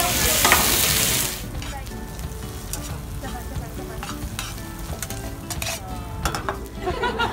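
Chicken breasts sizzle loudly in a hot pan for about the first second, then the sizzle drops to a quieter frying sound as sliced red onions are stirred in a pan with metal tongs. The tongs click and scrape against the pan.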